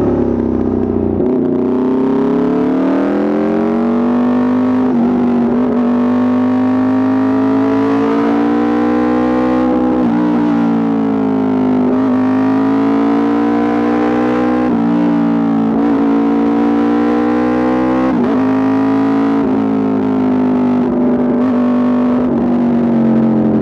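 Aprilia RSV4 RR's V4 engine through an Austin Racing exhaust, running loud and steady at high revs while riding. Its pitch rises and falls slowly with the throttle, with a few quick drops along the way.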